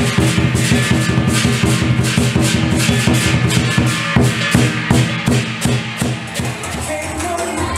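Music with a steady drum beat over sustained held tones.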